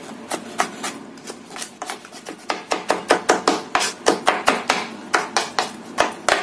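Chef's knife mincing garlic on a wooden cutting board: a run of sharp knocks, sparser at first, then about three or four a second from a couple of seconds in.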